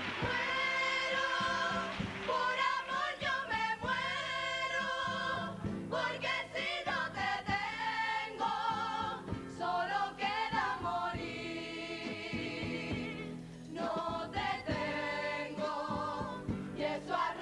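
Carnival comparsa choir singing in several voices, with guitar accompaniment under the voices; the sound drops briefly about three-quarters of the way through before the singing comes back in.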